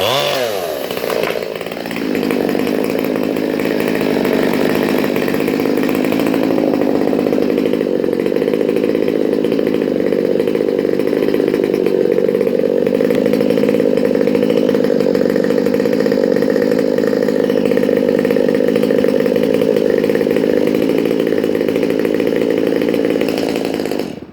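Rebuilt Stihl MS 200 T two-stroke top-handle chainsaw with a square-tooth, chisel-ground chain cutting wood. Its pitch drops from high revs into the cut at the start, then holds steady under load for about twenty seconds and cuts off abruptly near the end.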